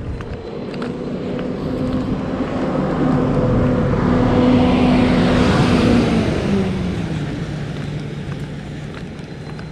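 A flatbed tow truck drives past. Its engine hum and tyre noise grow louder, peak about halfway through, then drop in pitch as it passes and fade away.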